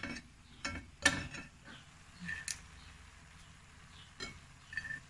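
Cookware and kitchen utensils knocking and clinking several times, the loudest about a second in; a couple of the strikes ring briefly.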